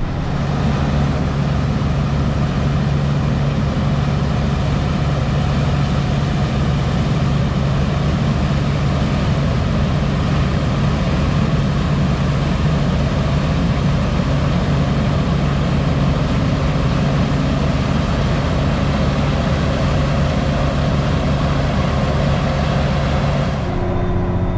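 Tractor engine running steadily under load, with a dense rushing noise over its hum. The noise cuts off abruptly near the end, leaving a lower, quieter engine hum.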